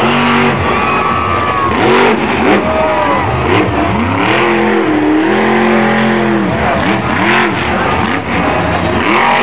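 El Toro Loco monster truck's supercharged V8 revving hard again and again, its note rising and falling in repeated swells.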